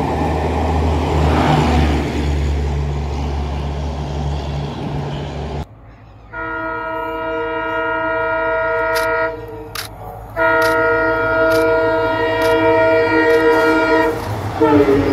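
Coaches of a passing train rolling by with a steady low hum; then, after a cut, an approaching WDP4D diesel locomotive sounds its multi-tone horn in two long blasts, the second starting about ten seconds in, before its engine grows louder as it nears.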